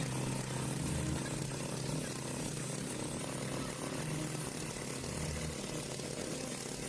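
A motor running steadily under load, with a low hum and a noisy hiss.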